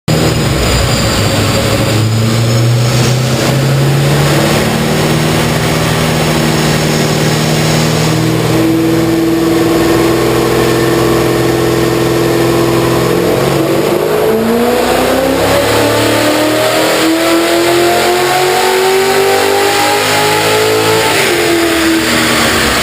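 Holden VE SS Ute's 6.0-litre V8, fitted with an aftermarket cam and exhaust, under load through a power run on a chassis dyno. The engine note holds fairly steady for a while, climbs steadily through the revs, then drops off as the throttle is released near the end.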